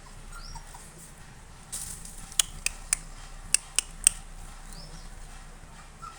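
A short swish, then six sharp clicks over about two seconds, each with a slight ring.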